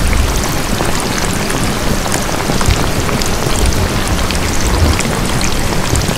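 Steady rain: a dense patter of drops over an even hiss, with a low rumble underneath.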